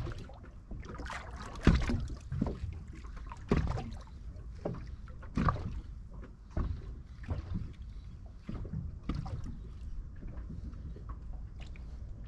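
Small waves splashing and lapping irregularly, about once a second, over a steady low wind rumble on the microphone.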